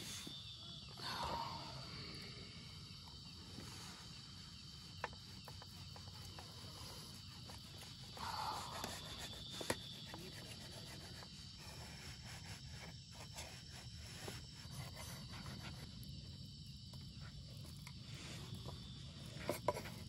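Insects chirping steadily, with scattered faint clicks and two brief louder sounds, about a second in and about eight seconds in.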